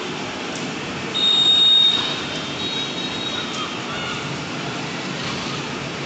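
Outdoor street ambience: a steady background of noise with faint, distant children's shouts. About a second in, a brief high, steady tone rises above it for under a second, then comes back more faintly.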